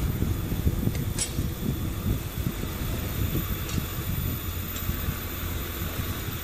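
Wind buffeting the microphone of a camera riding on a moving bicycle, over a low rumble of tyres on a concrete road, with a few faint clicks.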